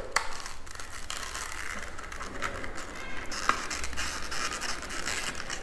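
Scratching, scraping and small clicks of plastic and metal parts handled close to the microphone, as an M.2 NVMe SSD is fitted into a USB-C enclosure.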